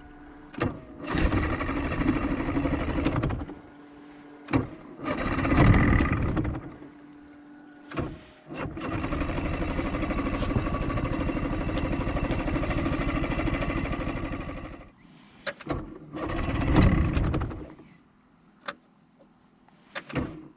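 Boat's outboard motor being cranked in four separate attempts, one of them about six seconds long, with clicks in between. The engine turns over but does not catch: it is close to starting.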